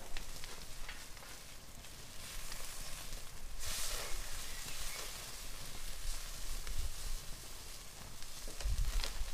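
Meat sizzling on a grill over a wood campfire, with the fire crackling in scattered sharp pops and a louder hiss about four seconds in.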